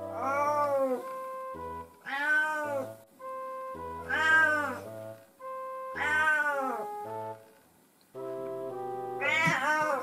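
Siamese-mix cat meowing five times, long drawn-out calls that rise and fall in pitch, roughly every two seconds with a longer gap before the last. Background music with sustained notes plays under the calls.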